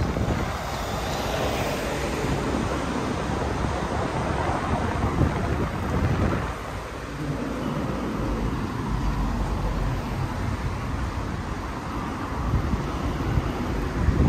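Wind buffeting the microphone in an uneven low rumble, over the noise of passing street traffic.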